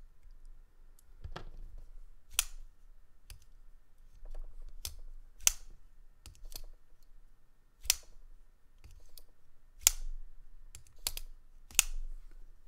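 Benchmade Griptilian folding knife, now with aluminum scales, being opened and closed over and over. Its AXIS lock and blade give about ten sharp metallic clicks, roughly one a second, some much louder than others, as the action is tested after the pivot was backed off.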